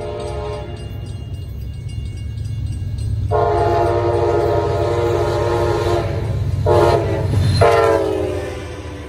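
Hartford Line passenger train's diesel locomotive approaching and passing, sounding the grade-crossing horn pattern: the end of one blast, a long blast, a short blast, then a final blast whose pitch drops as the locomotive goes by. Under the horn the engine and wheels rumble, growing louder up to the pass.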